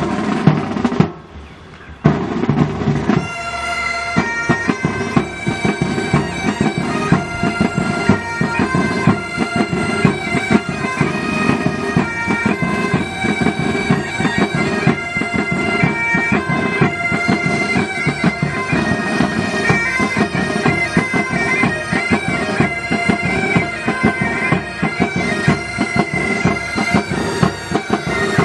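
Military pipe band: drums open with a few strikes, then the bagpipes come in about two seconds in and play a tune over their steady drone, with the drums beating along.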